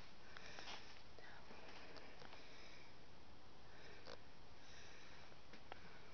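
Faint rustling and scattered light clicks over a steady hiss, with a few brief breathy rustles, such as a handheld camera being carried and handled.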